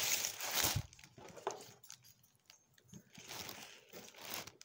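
Paper rustling as a wrapped bar of soap is unpacked and handled, loudest in the first second, with small handling clicks and a second, softer rustle near the end.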